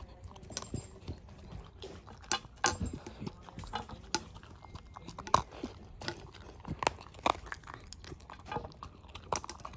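A dog eating dog food from a stainless steel bowl close to the microphone: irregular crunches and licks, with sharp clicks of food and tongue against the metal bowl.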